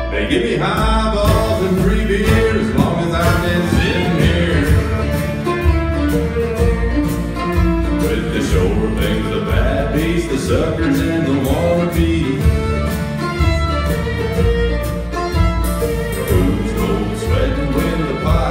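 Live bluegrass band playing a song: fiddle, banjo, acoustic guitar, mandolin and upright bass over a cajón and cymbal beat.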